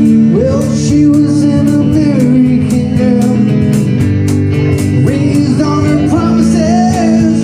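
Live band music: an acoustic-electric guitar strummed over a steady beat on a small drum kit played with sticks, with a male voice singing the lead.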